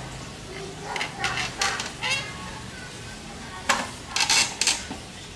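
Wooden folding stool being folded shut: its slats and legs clack and knock together, with a quick run of sharp knocks about four seconds in.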